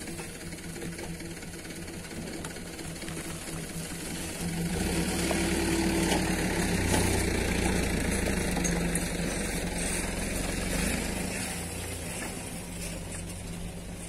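An engine running steadily, getting louder about a third of the way in and easing off again near the end.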